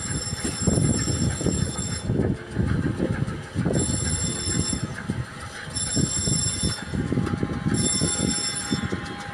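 Rumbling and irregular knocking aboard a tugboat working through heavy seas: engine, hull and waves. A high-pitched tone sounds for about a second roughly every two seconds.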